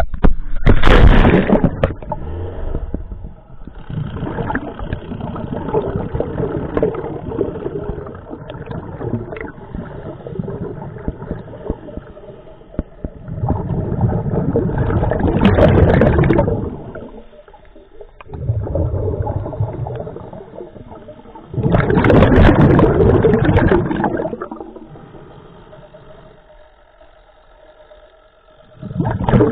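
Water rushing about a second in as the diver enters, then a scuba regulator heard underwater: long bubbling exhalations every seven or eight seconds, with quieter breathing between.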